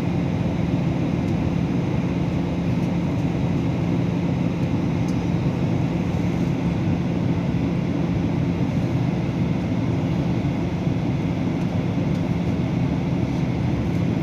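Steady drone of an airliner in flight heard inside the passenger cabin: engine and airflow noise with a constant low hum, unchanging throughout.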